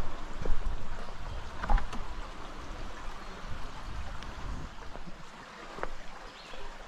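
Shallow creek water running over flat bedrock as a steady rush, with a few footsteps on the rock and a low rumble that fades out about five seconds in.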